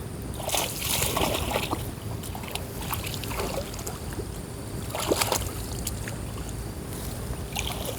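Shallow water splashing and sloshing in a few bursts, someone wading after fish in a flooded field, over a steady low rumble of wind on the microphone.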